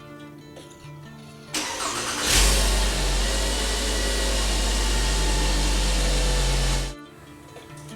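Background music, then about a second and a half in, a 2006 VW Jetta's 2.5-litre inline five-cylinder engine is started: a short burst of cranking, then it catches and idles with a steady, deep exhaust note. The engine sound cuts off abruptly about a second before the end, and music returns.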